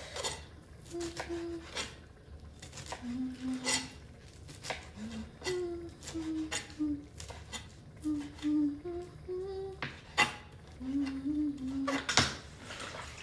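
A woman humming a slow tune in short held notes, while kitchen utensils knock and clink on and off as something is cut.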